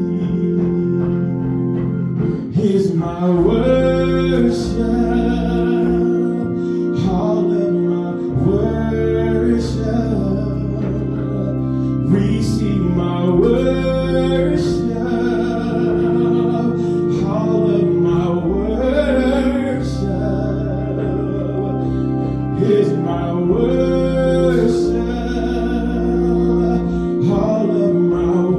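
A gospel worship song: a singer's voice over steady instrumental backing.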